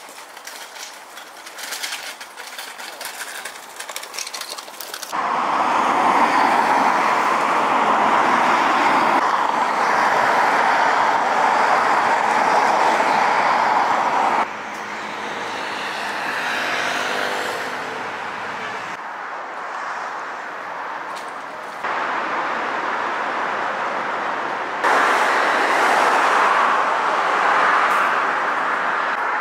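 Outdoor city ambience of road traffic: a steady rush of passing cars. It is quieter with light clicks for the first five seconds, then louder, and its level and tone change abruptly several times.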